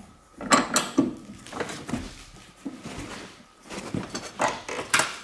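Metal clinks and scrapes of a wrench and a cut-down hex key on a rear strut's top nut as the nut is worked loose, in a handful of separate knocks.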